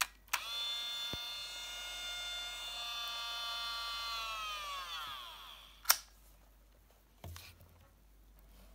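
Olympus Trip AF 50 compact film camera switched on: a click as the sliding lens cover opens, then an electronic whine from the camera of several tones for about five seconds, steady and then falling in pitch as it dies away. A sharp, loud click follows, and a softer click a little later as the lens cover is slid shut.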